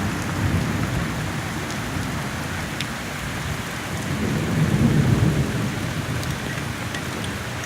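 Steady rain with thunder rumbling low throughout, swelling to its loudest about halfway through before easing off.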